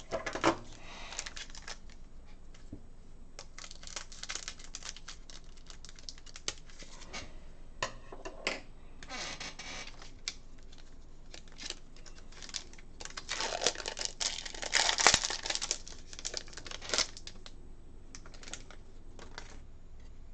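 A trading-card pack being handled and opened: crinkling and tearing of the foil wrapper and small clicks of the cards, with a longer flurry of crinkling about two-thirds of the way through.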